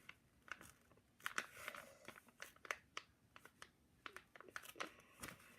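Faint, irregular scratches and light taps of a pen writing on paper.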